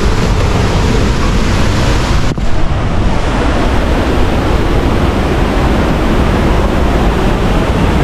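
Loud, steady rush of falling water, with a brief dip about two seconds in.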